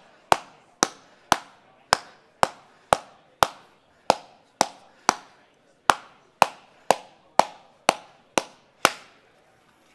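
Red rubber mallet beating a sheet of aluminium on a padded stump: about seventeen sharp strikes, roughly two a second, each with a short ring, stopping near the end. It is hand-forming the panel, working it out to make it fuller.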